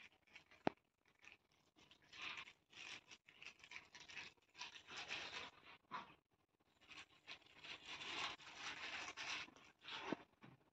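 Faint rustling and rubbing of cloth and a bag being handled as clothes are packed, with one sharp click about a second in.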